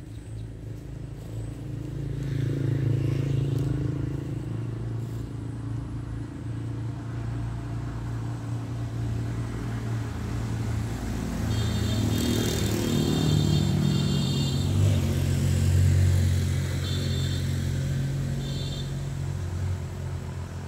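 Motor vehicles running past on a nearby road, a steady low engine rumble that swells twice as they go by. Short bursts of high beeping come about halfway through and again near the end.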